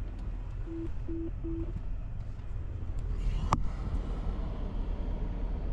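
Three short, evenly pitched phone beeps in quick succession about a second in, the call-ended tone right after a phone call is hung up, over a steady low rumble. A single sharp click comes about halfway through.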